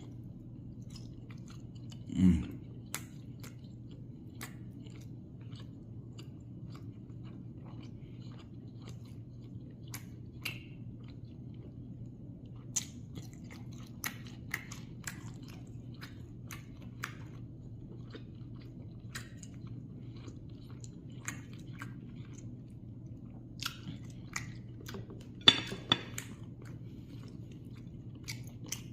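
Close-miked chewing and biting of fried pork (griot), with scattered crunchy, wet mouth clicks over a steady low hum. A short louder thump comes about two seconds in.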